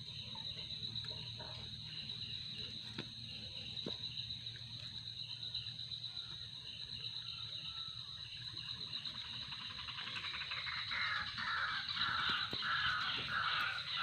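Outdoor ambience of insects droning steadily at a high pitch, joined in the last few seconds by a bird calling over and over, about twice a second.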